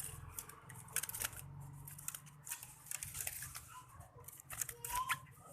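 Irregular light clicks and rustling of close handling, with one short faint chirp about five seconds in.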